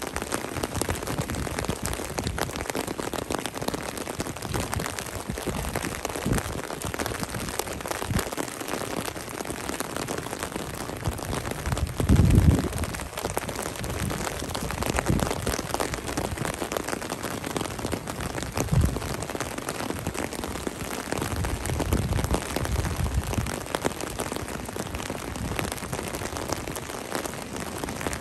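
Steady rain falling on an asphalt alley and its puddles, an even hiss. A few short low rumbles rise over it, the loudest about twelve seconds in.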